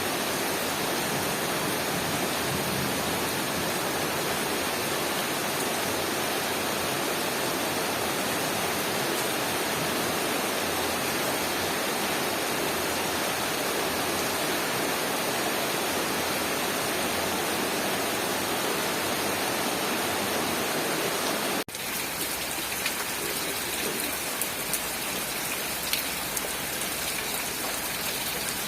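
Heavy rain, a dense, even rushing hiss. About 22 seconds in it cuts abruptly to a slightly quieter rain recording in which individual drops can be heard ticking on a surface.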